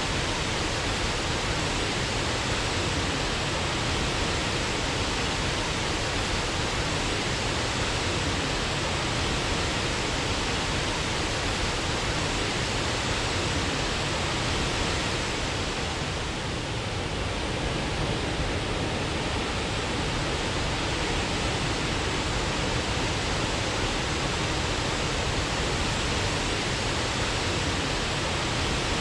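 Waterfall: a steady rush of falling water, briefly a little softer a bit past halfway.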